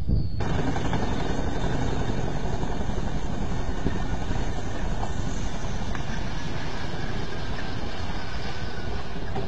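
Boeing CH-47 Chinook tandem-rotor helicopter running: a steady, loud mix of rotor and turbine-engine noise that starts abruptly about half a second in.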